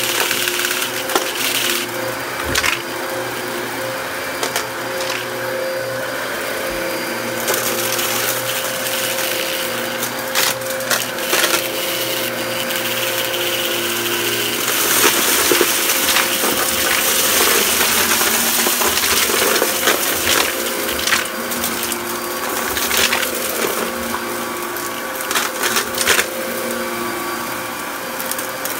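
Dyson upright vacuum cleaner running steadily on carpet. Its motor is overlaid by frequent crackling clicks and rattles as it sucks up scattered dry debris.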